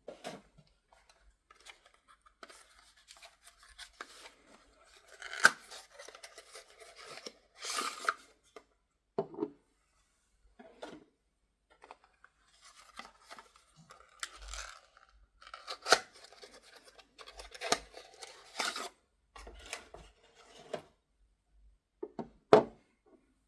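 Paper or packaging being handled and cut, rustling and crinkling in short bursts, with several sharp clicks and knocks.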